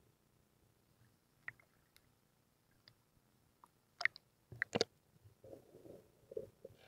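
Underwater sound while snorkeling: scattered sharp clicks, loudest in a cluster about four to five seconds in, followed by a muffled burbling of water.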